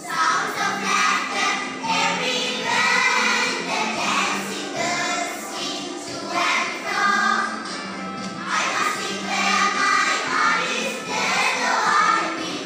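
Children's choir singing together in phrases over a steady instrumental accompaniment; the voices come in right at the start.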